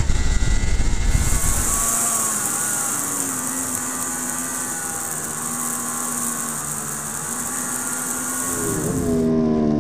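Yamaha R1 superbike's inline-four engine at racing speed, heard from a camera on the bike, its pitch shifting gently through the corners and rising near the end. A steady hiss of wind over the camera comes in about a second in and drops away shortly before the end.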